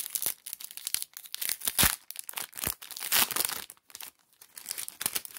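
A foil wrapper of a Top Gear Turbo Challenge trading-card pack crinkling and tearing as it is opened, mixed with cards being handled, in an irregular run of crackles and rustles. The crackling is busiest a couple of seconds in and eases off briefly near the end.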